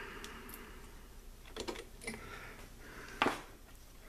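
Pliers working a wire loose at a terminal inside a metal power-supply chassis: a few faint clicks, then one sharper click about three seconds in.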